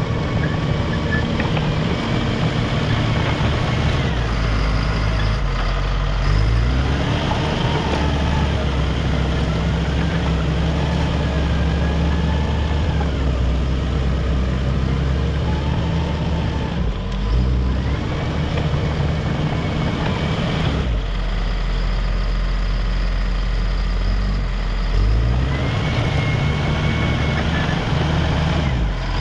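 Caterpillar D5 wide-track bulldozer's diesel engine running steadily while grading, its pitch dropping and rising again several times as the machine works.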